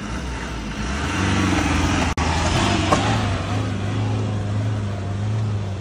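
Force Gurkha's four-cylinder diesel engine pulling hard under full throttle, at a steady pitch, as the 4x4 climbs a steep dirt slope. Its tyres scrabble and spray loose sand. The sound cuts out briefly about two seconds in.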